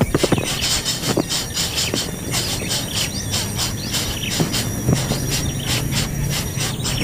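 Hungry nestling birds begging: a fast, steady stream of shrill, squealing calls, several a second.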